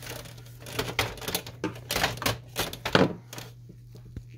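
Irregular plastic clicks and knocks from handling an inkjet printer's plastic side cover and casing while working its release tabs, with one louder knock about three seconds in. A steady low hum runs underneath.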